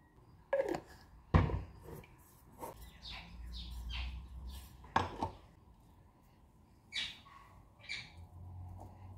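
Kitchen handling sounds: a small nonstick pan knocked down on a hard countertop, a few sharp knocks in all, the loudest about a second and a half in and again about five seconds in. Between them come short high squeaks as fingers rub oil around inside the pan, and dough is pressed into it.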